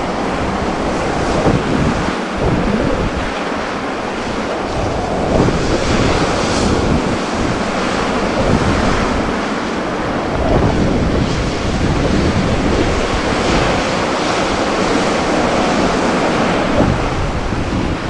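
Ocean surf breaking and washing on a beach in continuous swells, with wind buffeting the microphone in irregular low rumbling gusts.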